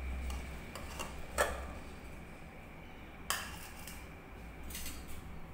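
Steel bowl clinking against the rim of a stainless steel mesh flour sieve as boiled potatoes are tipped into it: a few sharp metallic clinks, the loudest about a second and a half in and again just past three seconds.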